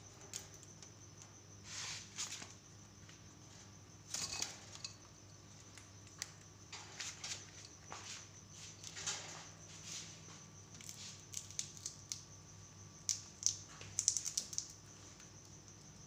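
Indian ringneck parakeets cracking and nibbling peanuts with their beaks: irregular small crunches and clicks, coming in clusters and busiest near the end.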